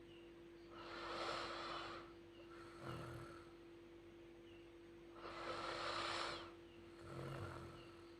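A sleeping child snoring: two long noisy breaths about four seconds apart, each followed about a second later by a short low-pitched snore, over a steady low hum.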